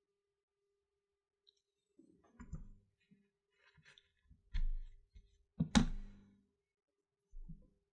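Scattered clicks and short knocks of tools and parts being handled on a phone-repair workbench, starting about two seconds in, with one louder sharp knock near six seconds. A faint steady hum sits underneath.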